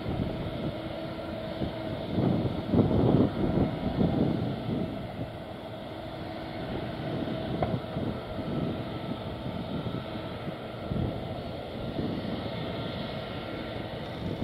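Twin jet engines of a Boeing 777 idling as it taxis and turns on the runway: a steady jet whine over a low rumble. Gusts of wind on the microphone come through about two to four seconds in.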